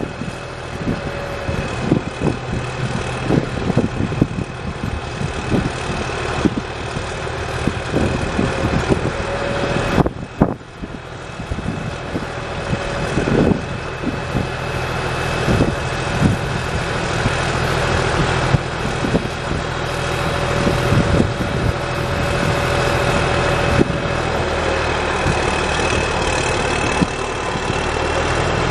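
CASE W20C wheel loader's diesel engine running while the loader arm and bucket are worked hydraulically, with a steady high whine over the engine hum and scattered short knocks. The engine grows gradually louder over the second half.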